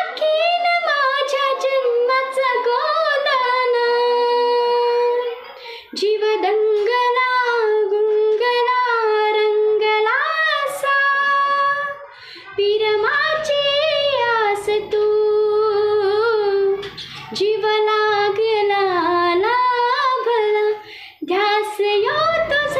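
A woman singing a song solo, with long held notes ornamented by quick turns in pitch and brief breaks for breath about six, twelve and twenty-one seconds in.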